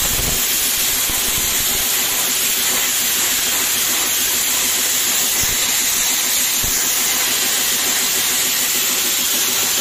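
Handheld air plasma cutter torch hissing steadily as it cuts through oil-drum sheet steel: a constant high hiss of the compressed-air arc.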